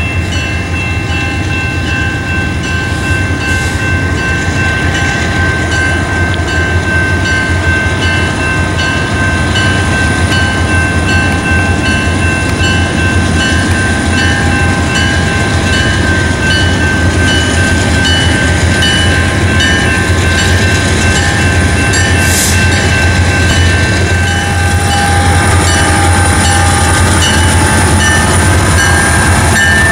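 Diesel-electric freight locomotives, an EMD SD70MACe leading, pulling a grain train out of a siding. Their engines drone steadily under a few thin, steady high tones, and the sound slowly grows louder.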